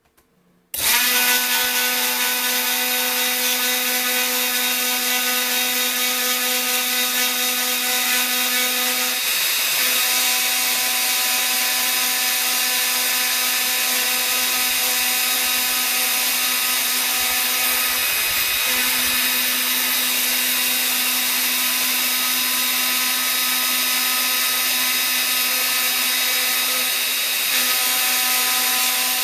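Small CNC router's spindle motor starts up abruptly just under a second in, then runs with a steady high whine while its V-shaped engraving bit mills a copper-clad PCB blank. The tone shifts slightly twice as the cut goes on.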